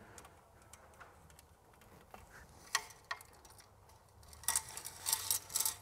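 Light clicks and ticks of wiring being pulled and snaked through the channel of a Minn Kota Raptor shallow-water anchor bracket: sparse at first, with two clicks about three seconds in and a quicker run of small taps near the end.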